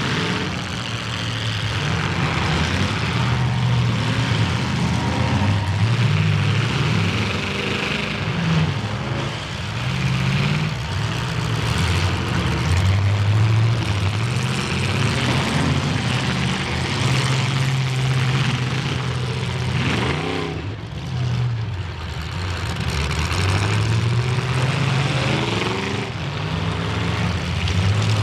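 Engines of several demolition derby cars revving and running, their pitch rising and falling again and again as the cars accelerate and back off.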